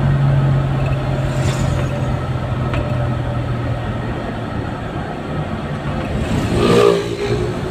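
Vehicle engine running and tyre noise heard from inside the cab while driving, with a steady low engine hum that eases off partway through. A louder swell of traffic noise near the end as vehicles pass close by.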